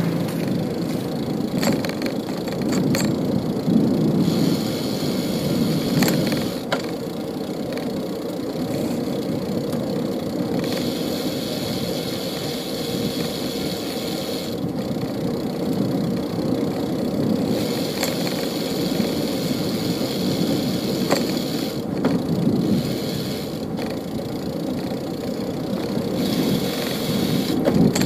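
City street traffic: cars and engines running and passing in a continuous rumble, with a few sharp clicks and rattles along the way.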